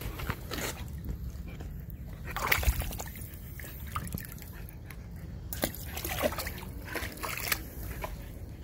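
Shallow water splashing and sloshing in a plastic paddling pool as a husky splashes about after a tennis ball. It comes in irregular bursts, the loudest about two and a half seconds in.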